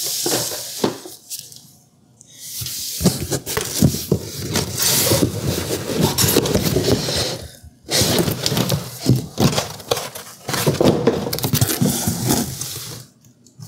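Plastic packaging bags crinkling and cardboard packing inserts rustling and scraping as wrapped appliance parts are handled and pulled from a shipping box. The sound comes in three spells, with short pauses about two seconds in and near the middle.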